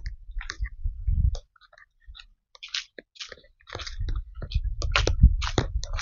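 Irregular footsteps crunching dry leaves and twigs on a forest footpath, with a low rumble from movement on the microphone.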